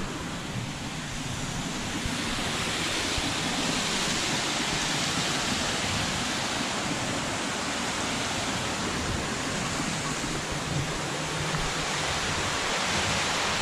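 Water rushing and splashing over a low weir in a concrete irrigation channel: a steady, even rush that grows a little louder about two seconds in.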